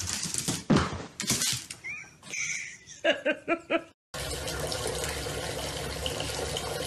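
A few sharp knocks, then five short high-pitched cries in quick succession about three seconds in. From about four seconds in, water runs steadily from a bathtub tap.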